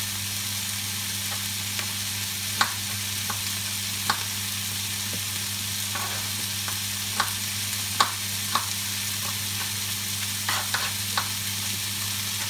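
Tomato, onion and pak choy stems sautéing in a nonstick frying pan: a steady sizzling hiss with scattered sharp pops, about a dozen over the stretch.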